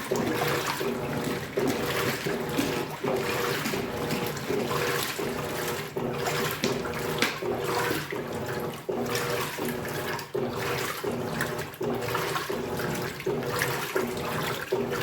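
Electrolux Turbo Economia 15 kg washing machine in its wash cycle: water churning and sloshing in the tub, surging and easing about once a second, over a steady motor hum.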